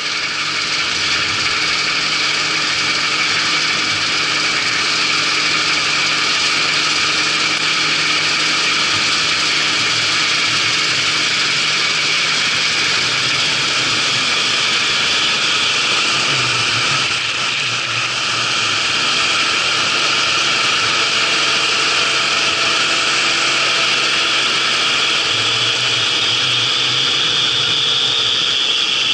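A Claas Dominator 88 combine harvester running steadily during harvest: a continuous engine and machinery noise, dipping briefly a little past halfway.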